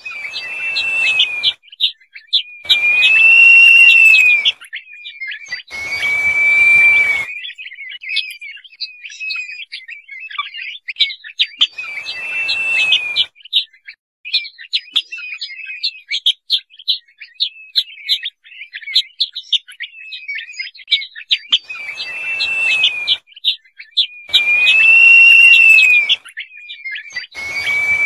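Crested partridge (roul-roul) calling: about seven drawn-out whistles of a second or so, each rising slightly and falling away, over a nearly continuous run of rapid short high chirps.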